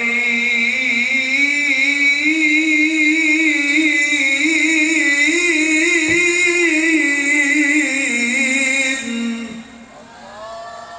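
A man's voice in melodic Qur'an recitation (tilawah), amplified through a PA system: one long ornamented phrase held for about nine and a half seconds, with rippling turns in the melody, that ends shortly before the end.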